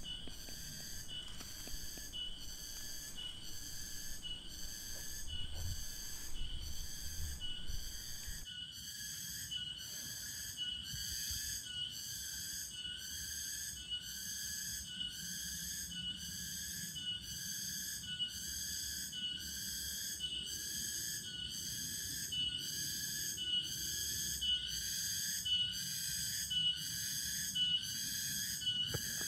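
An insect calling in a rhythmic pulsing song, about one and a half pulses a second, high-pitched and unbroken. Low rumbling handling noise sits under it for the first eight seconds or so.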